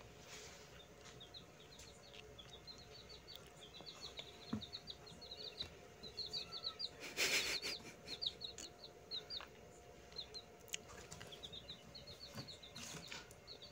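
Baby chicks peeping in rapid runs of short, high chirps, with a brief rustle of the cardboard box they sit in, handled about seven seconds in.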